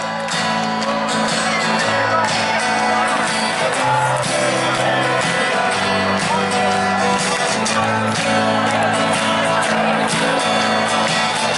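Live band music played over a festival stage's PA system, with singing and held bass notes that change every second or so, heard from within the crowd.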